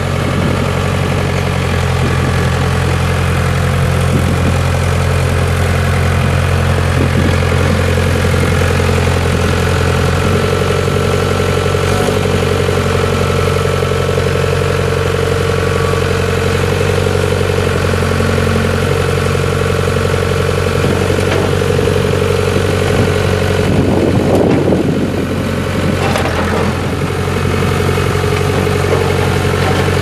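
The four-cylinder diesel engine of a 1984 Case 580E backhoe running steadily at low revs. The sound changes briefly about three-quarters of the way through.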